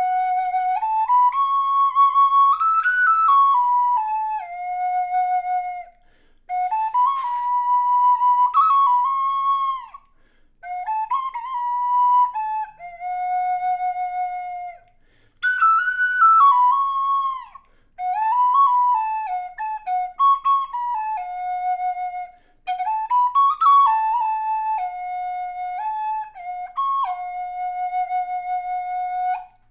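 High Spirits six-hole Native American-style flute in high F♯ minor, made of quilted maple with walnut, playing a slow melody in six phrases separated by short breath pauses, most phrases ending on a long held low note.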